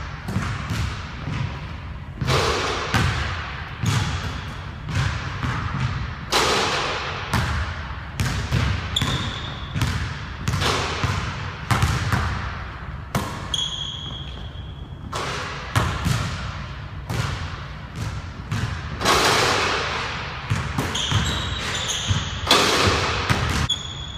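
A basketball bouncing and being dribbled on a hardwood gym floor: repeated sharp thuds that echo through the large hall. A few short high squeaks, from sneakers on the court, come in between.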